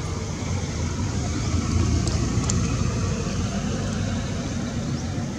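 Steady low outdoor rumble, a little louder about two seconds in, with a few faint high chirps.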